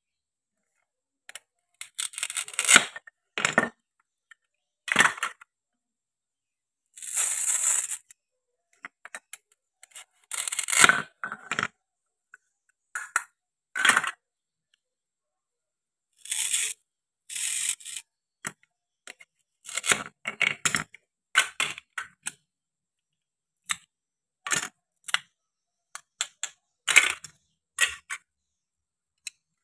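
Hook-and-loop (Velcro) halves of plastic toy fruit and vegetables ripping apart as they are cut with a wooden toy knife, mixed with knocks and clacks of the plastic pieces and the wooden knife on a wooden cutting board. Short separate rips and knocks with pauses between them, the longest rip about seven seconds in.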